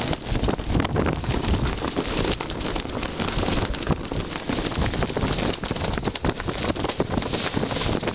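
Wind buffeting the microphone aboard a sailboat under sail in a fresh breeze, a dense, gusty rush with crackling spatters, likely water and spray along the hull.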